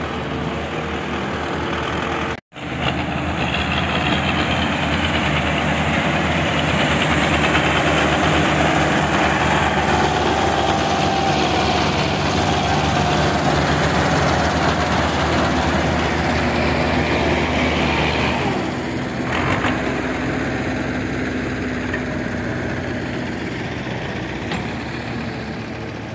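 Belarus 510 tractor's diesel engine running steadily under load, pulling a heavily loaded sugarcane trolley. The sound cuts out for an instant about two and a half seconds in, and the engine note shifts lower about eighteen seconds in.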